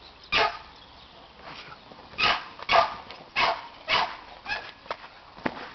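Dog barking repeatedly: a series of about eight short, sharp barks at uneven intervals.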